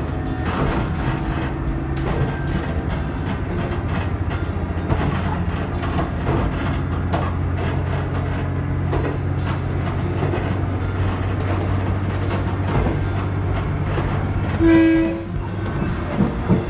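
Diesel railcar running fast, heard from inside: a steady engine and running drone with occasional wheel knocks, and one short horn blast near the end.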